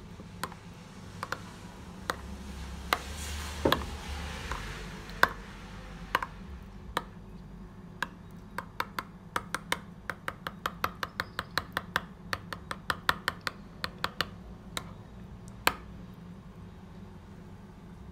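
Metal spoon stirring a thick mayonnaise dressing in a small glass bowl, clinking against the glass: scattered clinks at first, then a quick run of several clinks a second through the middle.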